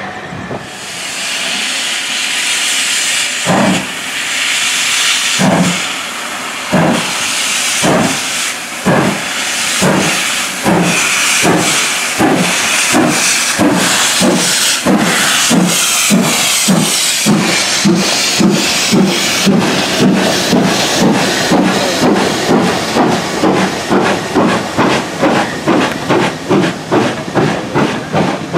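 GWR Hall-class steam locomotive 4930 Hagley Hall pulling away from a standstill. Steam hisses from its open cylinder drain cocks while its exhaust chuffs begin slowly and quicken steadily as the train gets under way. The hiss fades in the second half, leaving a fast, even beat.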